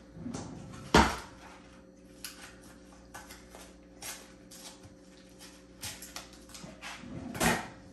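Kitchen counter handling sounds as queso fresco is crumbled by hand into a blender jar: scattered light clicks and rustles, with a sharp knock about a second in and a duller thump near the end.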